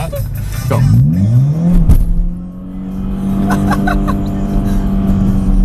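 Car engine revving up quickly and then held at high revs, heard from inside the cabin.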